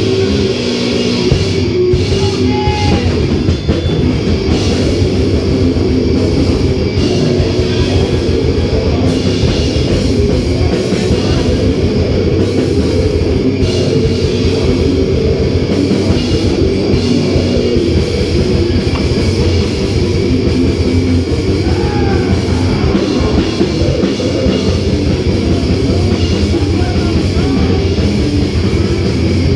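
Heavy metal band playing live: distorted guitars and bass over fast drumming, loud and unbroken.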